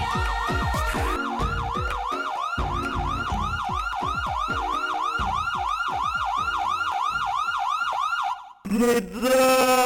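Police siren in a fast yelp, sweeping up and down about three times a second over music with a thudding beat. Both stop about eight seconds in, and a loud, steady droning tone starts.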